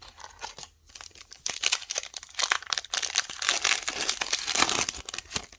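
Foil wrapper of a trading-card pack crinkling and tearing as it is ripped open. The rustling is light at first and grows dense and loud about one and a half seconds in.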